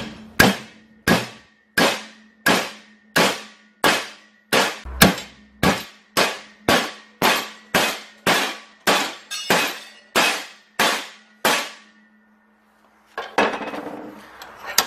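Hammer blows on a 3/8-inch stainless steel rod clamped in a bench vise, bending it over: about twenty sharp metallic strikes, evenly paced at a little under two a second. The blows stop well before the end, and softer clatter follows as the rod is handled.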